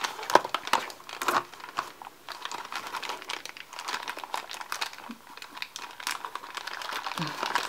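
Small cardboard box handled by hand, its flaps rubbing and creasing: a continuous crinkling and rustling with many small ticks and scrapes.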